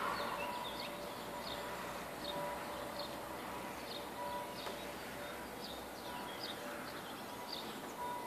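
Small songbirds chirping: short high chirps repeating irregularly, about one or two a second, over a steady outdoor hiss.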